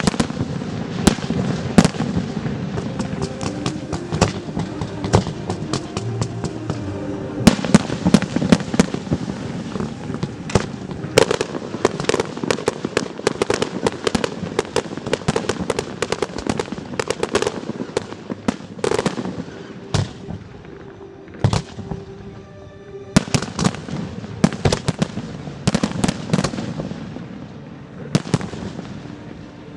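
Fireworks going off in a rapid, continuous string of sharp bangs and crackles, thinning to a few single bangs about twenty seconds in before the volley picks up again.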